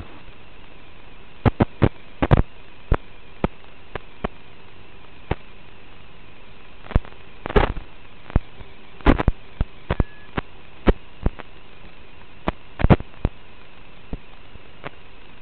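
Steady hiss from an analog video link's audio channel, broken by irregular sharp clicks and pops, one or two a second, with a cluster of louder crackles about halfway through and a faint steady hum underneath.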